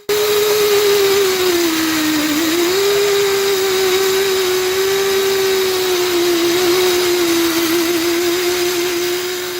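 Angle grinder cutting through a VAZ 2107 front coil spring to lower the car, with a steady high whine and hiss. The pitch sags about two seconds in as the disc bites, then picks back up.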